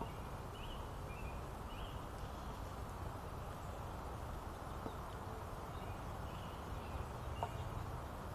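Outdoor park ambience: a steady low rumble with scattered short, high chirps from birds or insects, in two clusters. A few faint clicks occur, one about five seconds in and one near the end.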